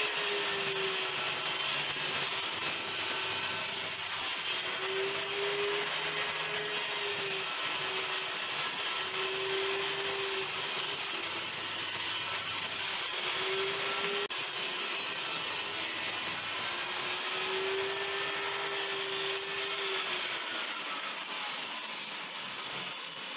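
Table saw running and ripping pine boards lengthwise into thin strips: a steady, loud whine and hiss of the blade in the wood, with a tone that comes and goes several times as the boards are fed through.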